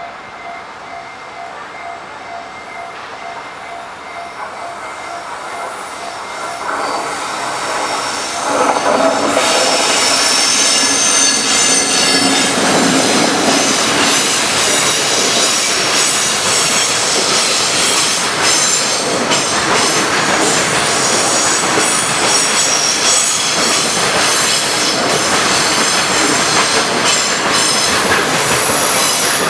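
A Japanese level-crossing warning bell rings in an even, repeating pattern. About seven to nine seconds in, a freight train hauled by an electric locomotive reaches the crossing and passes loudly, its wagons rolling over the rails with high wheel squeal.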